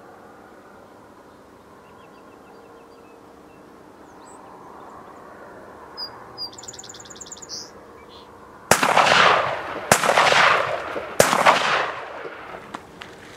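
Three shotgun shots from a duck hunter's gun, about a second and a quarter apart, each trailing off in a rolling echo.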